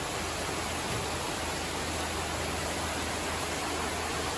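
Heavy tropical downpour: rain falling on palms, foliage and thatched roofs as a steady, even hiss.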